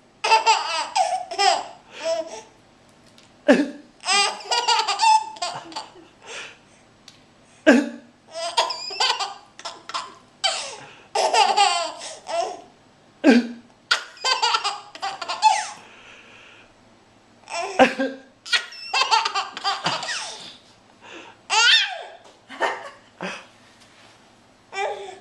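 A baby laughing in repeated high-pitched peals. Between them come short, sharp coughs every few seconds, and each cough sets off a fresh burst of laughter.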